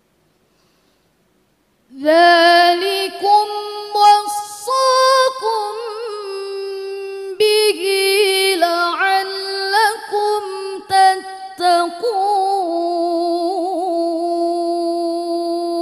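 Young woman's voice reciting the Quran in Arabic in murattal style into a microphone, starting about two seconds in after silence. Melodic phrases with ornamented turns and short breaths, ending on a long held note.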